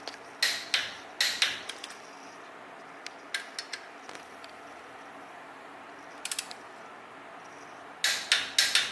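Sharp metallic clicks and clacks in short clusters, the loudest run near the end: hand tools and steel axle parts being handled during front-axle knuckle assembly.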